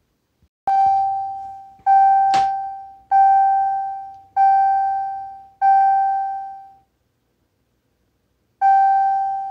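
Warning chime from a 2013 Dodge Ram instrument cluster as it powers up: one bell-like tone sounding five times about a second and a quarter apart, each fading away, then once more near the end. A sharp click sounds about two seconds in.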